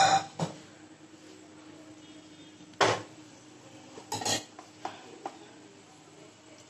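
Metal utensil clanking against a heavy cooking pot: a sharp clank at the start, another about three seconds in, a quick cluster around four seconds, then a couple of lighter clinks.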